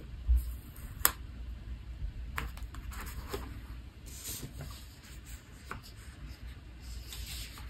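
Faint handling of paper: fingertips pressing and smoothing stickers onto a planner page, with a few light clicks and soft rustles.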